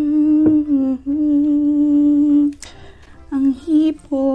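A woman humming with closed lips in a series of long held notes at a low, slightly wavering pitch, broken by short pauses. A brief sharp noise comes between the notes at about two and a half seconds in.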